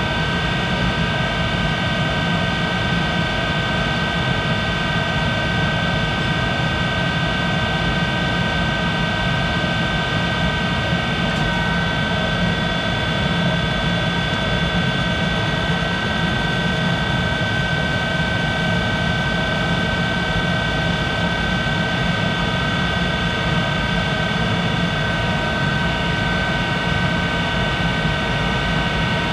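1951 Monarch 10EE lathe running at a steady speed and taking a roughing cut to reduce the part's diameter, a steady whine of several tones over a continuous mechanical rumble.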